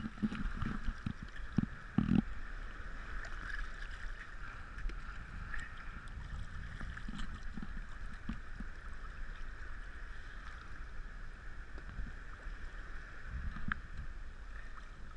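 Shallow sea water sloshing and lapping right against a camera held at the water's surface, with a few louder splashes in the first couple of seconds.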